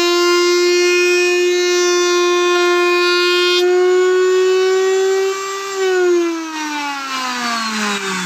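Table-mounted wood router running at a steady high-pitched whine while a strip of cornice molding is fed past the bit, then switched off about six seconds in, its pitch falling steadily as the motor spins down.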